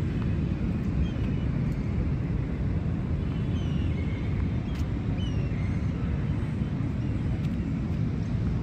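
Outdoor city-park ambience: a steady low rumble of distant traffic, with a few short, high bird chirps scattered through it.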